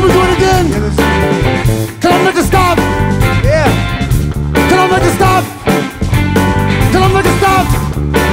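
Live funk band playing an instrumental passage: electric guitar lead with bending notes over a steady bass line and drums.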